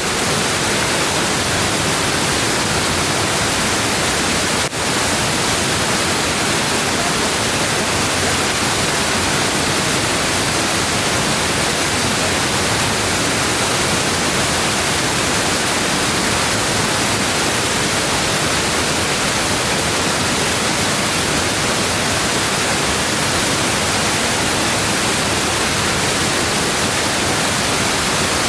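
Waterfall: a loud, steady, even rush of falling water, with a brief dip in level about five seconds in.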